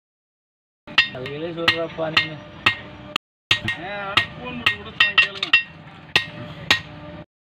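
Blacksmith's hand hammer striking a red-hot knife blade on an iron anvil, a dozen or more irregular ringing metallic blows, reforging the old blade. The blows start about a second in and break off briefly around the middle.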